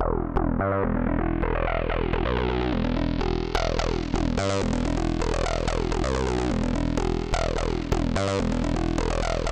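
Background electronic music: a synthesizer track with a steady beat and falling synth sweeps.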